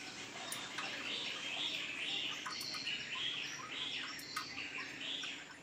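Small bird chirping over and over, about two short chirps a second, with a few light clicks from hand tools at the engine.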